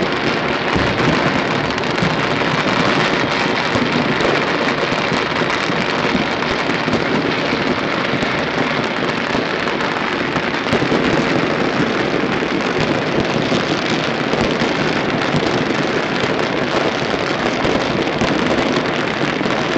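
Dense, unbroken crackling of many firecrackers and fireworks going off at once. There are so many that the single pops merge into one steady crackle at an even, loud level.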